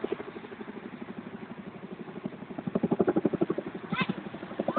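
CH-47 Chinook tandem-rotor helicopter flying overhead: the rapid, rhythmic beat of its rotor blades, growing louder about three seconds in.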